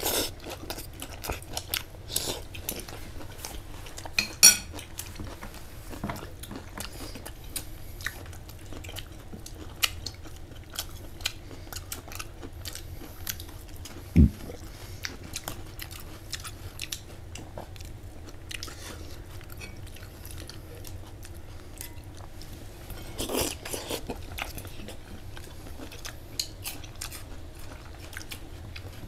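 A person eating, chewing and crunching food in a run of small irregular clicks over a steady low hum, with a couple of louder knocks, one about four seconds in and one about fourteen seconds in.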